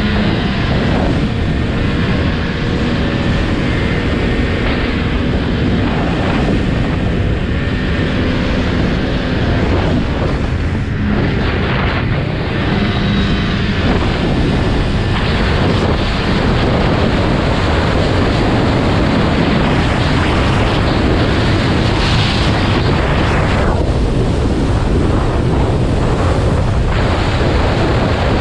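Snowmobile running steadily at speed, its engine drone mixed with heavy wind noise on the microphone.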